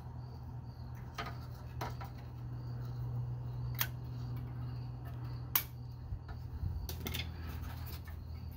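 Needle-nose pliers clicking on the small metal retaining clip inside a steel fuel line's quick-connect fitting as it is worked loose: a few sharp metallic clicks several seconds apart, over a steady low hum.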